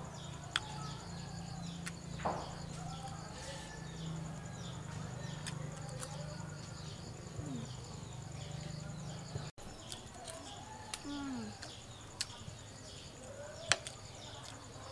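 Rural outdoor ambience: birds calling with many short, repeated chirps over a steady high insect whine, and a few sharp clicks of a metal spoon against a dish.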